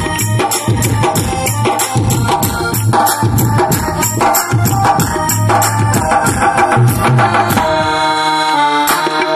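Instrumental break of a devotional song: a drum beaten with sticks keeps a fast, steady rhythm under a keyboard melody, with a held keyboard chord near the end.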